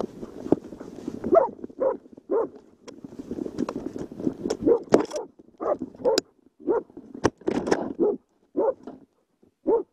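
Bear-hunting hound barking over and over in short, loud barks, roughly one every half second to a second, with sharp clicks and rustling from movement through the brush between them.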